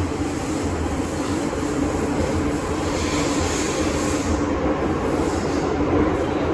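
MTR Island Line M-Train running through the tunnel, heard from inside the carriage: a steady rumble of wheels and traction equipment, with a higher hiss swelling briefly about three to four seconds in.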